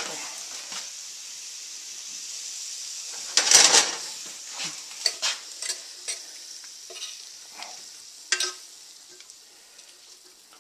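Squid sizzling in a hot cast iron frying pan, a steady hiss that slowly dies away, with one louder burst about three and a half seconds in. Short clinks of a utensil against the pan and plate follow as the squid is served out.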